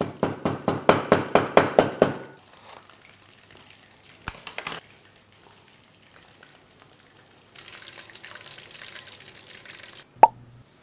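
Fast, rhythmic knife chopping on a wooden cutting board as lemongrass is finely sliced, about five or six cuts a second, stopping after about two seconds. A metallic clink follows, then a faint hiss of hot oil in a wok, and a single sharp sound near the end as the lemongrass goes in.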